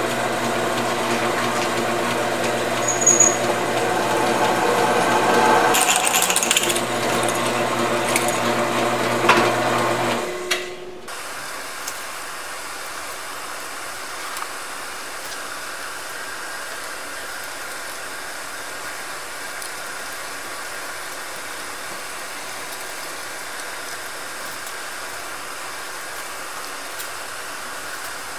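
Drill press motor running steadily while drilling a hole into a small steel hub, then switched off about ten seconds in. After it stops, only a steady, quieter background hum remains while the hole is tapped by hand.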